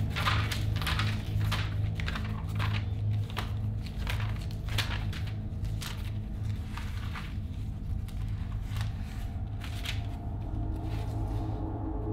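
Thin pages of a Bible being leafed through by hand: a quick run of papery flicks and rustles that thins out near the end, over a low, steady music drone.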